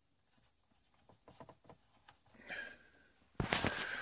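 Faint plastic clicks and scrapes as cut-off trim end pieces are pushed and slid into a dashboard radio bezel, followed by a louder rubbing scrape lasting about half a second near the end.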